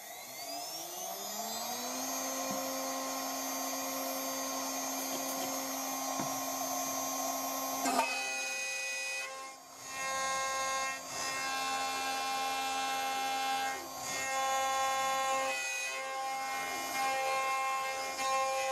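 CNC router spindle spinning up, its whine rising over about the first two seconds and then holding steady. From about eight seconds in, a 6 mm end mill plunges into and mills a pocket in an aluminium bar held in a vise. The cutting sound drops away briefly several times as the cutter moves between passes.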